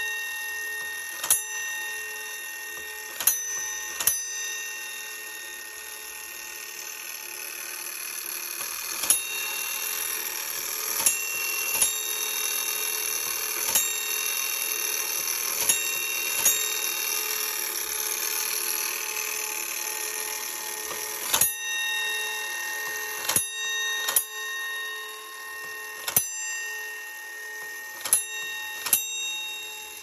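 1890s Geo. M. Stevens fire station gong, its clockwork-driven hammer striking the brass bell over and over, each stroke ringing on into the next. The strokes come roughly two seconds apart, some in quick pairs, sounding out a coded fire alarm signal from a Gamewell fire alarm circuit.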